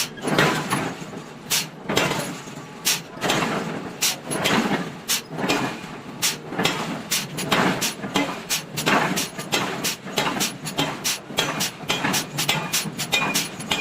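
Hammer blows on hot iron being forged flat: a run of sharp metallic strikes, irregular at first and coming faster, about two to three a second, in the second half.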